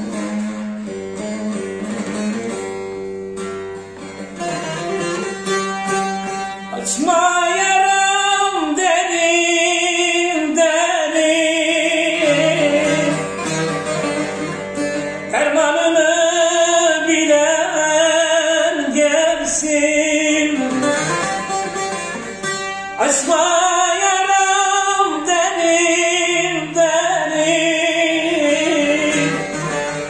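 A bağlama (long-necked Turkish saz) is plucked with a pick, playing a folk melody alone for about seven seconds. Then a man's voice joins in three long, ornamented sung phrases of held, wavering notes over the saz.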